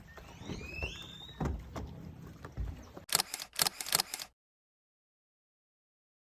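A few soft knocks and short rising chirps over a faint background, then about six sharp clicks in quick succession around three seconds in, after which the sound cuts off to complete silence.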